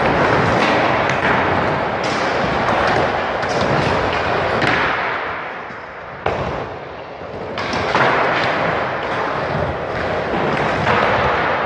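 Skateboard wheels rolling on a concrete bowl, with repeated knocks and thuds as the board hits the coping and lands. The rolling eases off about halfway through, and one sharp knock follows.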